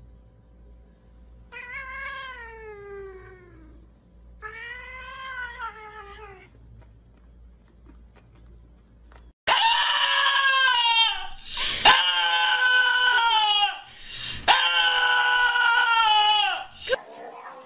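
A white cat gives two long, drawn-out meows that fall in pitch. Then a small long-haired dog howls loudly in three long calls with short breaks between them.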